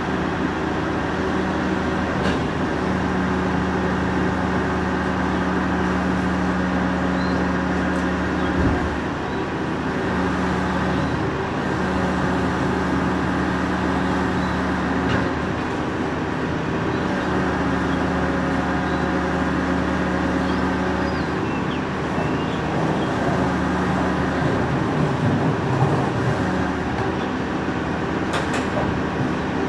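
Rear-loader compactor garbage truck's diesel engine running steadily, with the hydraulic compactor cutting in and out as a hum lasting several seconds at a time. A knock about nine seconds in and some clatter near the end.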